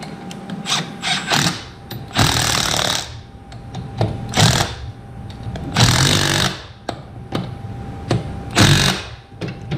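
Cordless impact wrench running in four short bursts of hammering, with smaller clicks and knocks in between.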